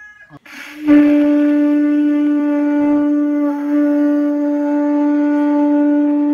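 A conch shell blown as a horn: one long, steady note that starts about a second in and holds without wavering.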